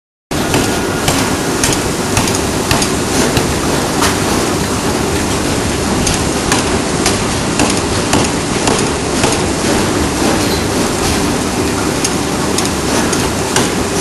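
D51 ring rolling mill running as it rolls a red-hot steel ring: steady loud machine noise scattered with many irregular sharp clicks and knocks, cutting in just after the start.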